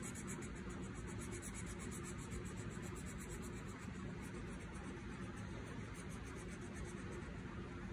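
Red felt-tip pen scratching on paper in quick, rhythmic back-and-forth shading strokes, several a second, dying away about six and a half seconds in, over a steady low hum.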